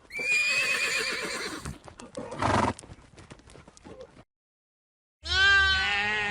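Horse whinnying: one long, high, quavering neigh, followed about two and a half seconds in by a short breathy burst and scattered light knocks. After about a second of silence, a bleat begins near the end.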